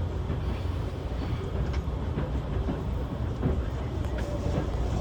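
Limited express train running, heard inside the passenger car: a steady low rumble with light, scattered clicks and knocks.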